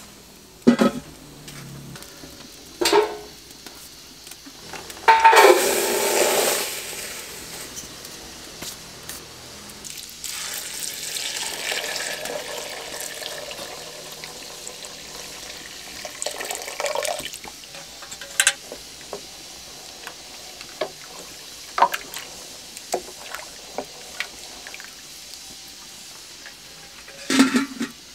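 Aluminium pot lids clanking as they are set down, with a few sharp metal knocks near the start and end. Water pours from a metal jug into a pot of dry white beans, splashing for several seconds in the middle.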